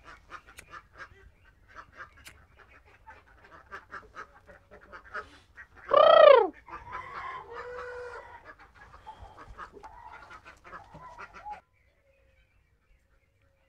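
Domestic fowl clucking and calling in short bursts, with one loud rising-and-falling squawk about six seconds in. The sound cuts off suddenly about two seconds before the end.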